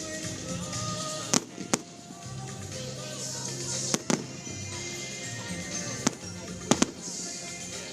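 Fireworks bursting with sharp bangs over music: two bangs about a second and a half in, one near four seconds, one near six, and a quick pair near seven.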